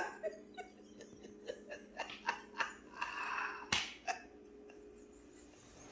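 Stifled, breathy laughter: a string of short, faint gasps and snorts, with a sharp click a little under four seconds in.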